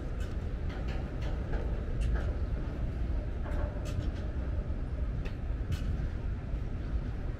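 Freight train of tank wagons rolling past: a steady low rumble with irregular sharp clicks and clanks from the wagons going over the track.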